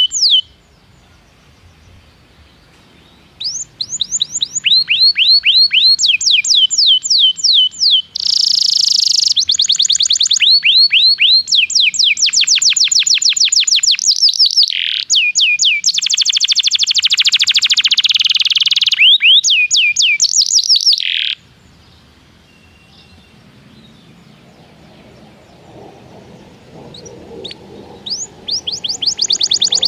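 Domestic canary singing: long phrases of rapid, repeated downward-sweeping whistled notes and fast rolling trills. The song breaks off about half a second in and resumes after about three seconds, then falls silent again around two-thirds through and starts up again near the end.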